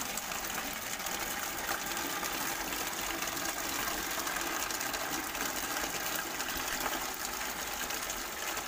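Water jet from a small electric water pump's outlet pipe pouring steadily into a plastic bucket as it fills, with the pump motor running underneath.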